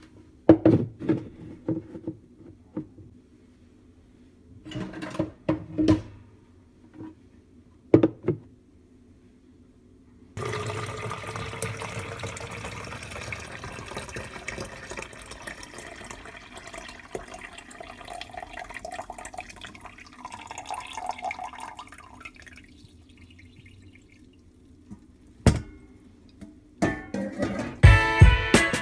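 Liquid being poured into a plastic pitcher. The pour starts suddenly about ten seconds in, runs steadily for roughly twelve seconds and rises slowly in pitch as the pitcher fills. Before it there are scattered knocks from handling, and a few sharp knocks come near the end.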